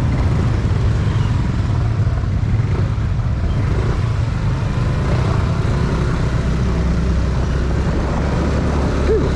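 Motorcycle engine running steadily while riding, under a constant rush of road and wind noise.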